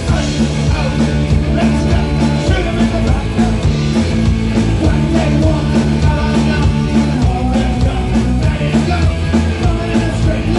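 Rock band playing, with a male voice singing over electric guitar, bass and drums.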